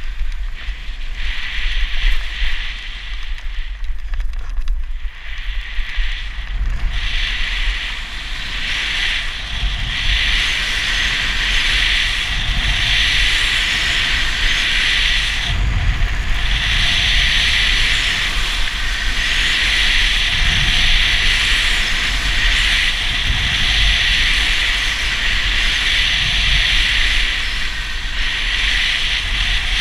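A snowboard sliding over snow with a steady hiss that grows stronger after several seconds and briefly drops out about halfway through, over low wind rumble on a helmet-mounted camera's microphone.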